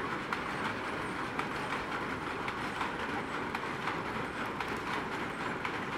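Wood fire burning steadily with frequent small crackles and pops.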